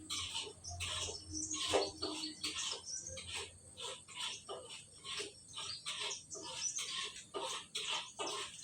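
Clothes being scrubbed by hand, an irregular run of short rubbing strokes, about two to three a second.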